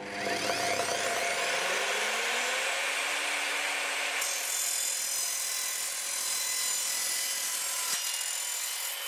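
Evolution R255SMS sliding mitre saw starting up, its motor rising in pitch over the first couple of seconds, then its multi-material blade cutting through a thin mild steel angle section with a steady loud grinding. A higher whine joins about four seconds in and holds to the end.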